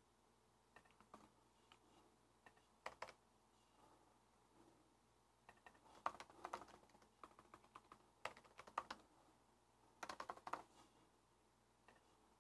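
Faint computer keyboard typing: several short runs of keystrokes with pauses in between.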